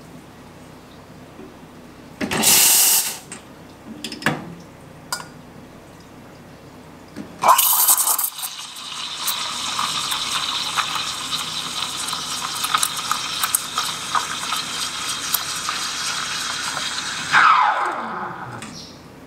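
La Marzocco Linea Mini steam wand: a short blast of steam as the wand is purged, a few light clicks, then the wand steaming milk in a stainless pitcher for a latte with a steady hiss lasting about ten seconds, which ends in a falling whine.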